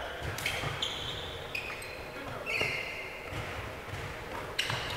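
Sneakers squeaking in short chirps on a gym court, among dull thuds of a basketball bouncing, during play in an indoor gym.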